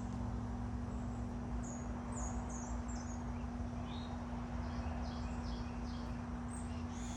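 A small bird chirping: a series of short, high chirps, many of them falling in pitch, coming thick and fast from about a second and a half in, over a steady low hum and background rumble.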